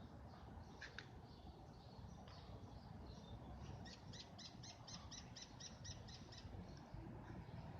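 Faint bird calls: scattered high chirps, then a fast run of about a dozen short, sharp, evenly spaced notes lasting a couple of seconds, with a single click about a second in.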